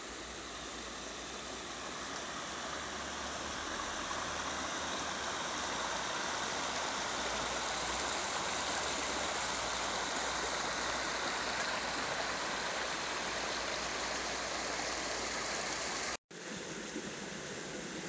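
River water rushing over a low stone weir of piled rocks, a steady rush that grows louder over the first few seconds. About sixteen seconds in it cuts off abruptly and gives way to a fainter rush.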